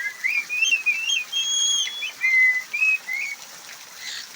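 Pet parrot whistling a tune of clear gliding notes, some held, that stops a little after three seconds. A steady hiss of falling water runs underneath.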